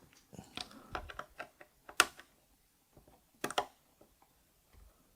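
Scattered sharp plastic clicks and taps from mechanical keyboard switches being worked into the hot-swap sockets of a keyboard. The loudest are a single click about two seconds in and a quick double click about a second and a half later.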